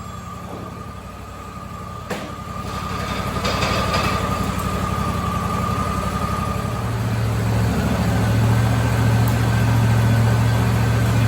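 Sawmill machinery running with a steady motor hum and a high whine. A sharp knock comes about two seconds in, and the running gets louder after it and again about seven seconds in.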